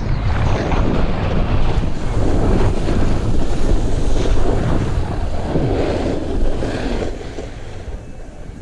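Wind buffeting the microphone of a downhill skier's camera, with the hiss and scrape of skis carving on packed snow rising and falling in swells with the turns. It grows quieter near the end.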